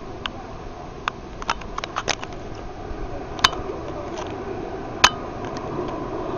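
Storm wind rushing during a tornado, growing louder towards the end, with scattered sharp knocks and clinks, the two loudest about three and a half and five seconds in.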